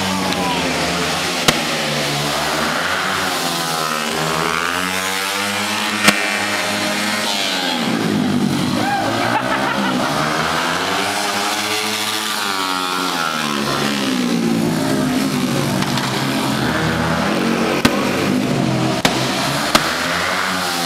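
Car engine revving over and over, its pitch rising and falling every couple of seconds, with a few sharp clicks.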